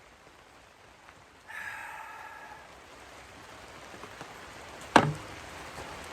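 One sharp, hard strike about five seconds in, a blow against the tough composite panel that fails to break it, over light rain. A faint, brief tone sounds about a second and a half in.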